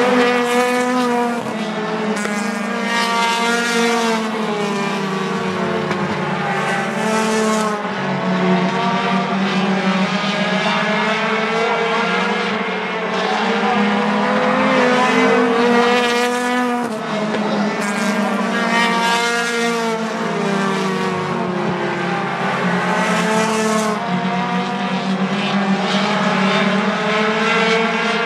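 Several four-cylinder Lightning 4 class race cars running in a pack around a short oval. Their engines rev up and down in pitch again and again through the corners and straights.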